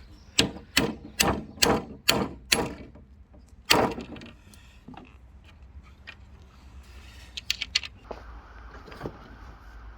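A run of knocks: about six evenly spaced blows, roughly two a second, then a heavier blow about a second later, and a few light clicks near the end.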